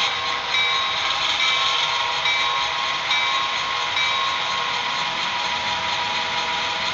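Sound decoder in an HO-scale brass FT diesel A and B set playing a steady diesel engine sound through the model's small speaker as the units roll slowly. A locomotive bell rings about once a second and stops about four seconds in.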